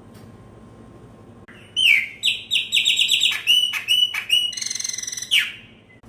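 Chopi blackbird singing one loud phrase starting almost two seconds in: a quick run of clear whistled notes, a few sharp downward-swept notes, then a fast trill, ending on a single note.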